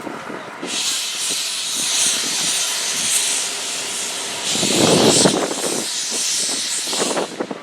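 Steam hissing from the C62 2 steam locomotive: a steady release that starts under a second in, surges louder for about half a second around five seconds in, and cuts off near the end.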